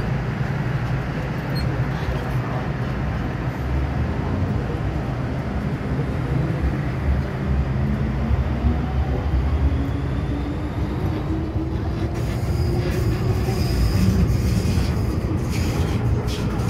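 MTR M-Train electric multiple unit accelerating away from a station, heard from inside the car. A steady rumble of wheels and running gear runs under a traction-motor whine that rises slowly in pitch as the train gathers speed. A few sharper knocks come near the end.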